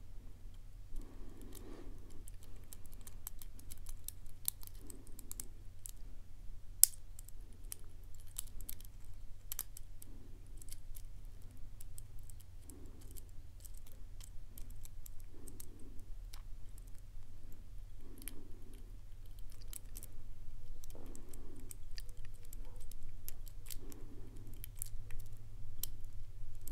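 Steel hook pick and tension wrench working in the keyway of a brass K1 Locks EVIL padlock, making faint metallic scratching and a stream of tiny clicks as the pins are lifted. One sharper click comes about seven seconds in.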